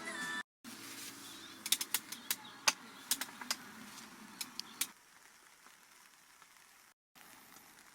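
Music cut off abruptly, then a run of sharp, irregular clicks and taps over low background noise, dying down to a quiet hiss.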